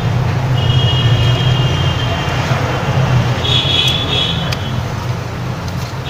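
Steady low rumble and hiss of background noise, with a thin high tone held for about two seconds and then two short high tones a little past the middle.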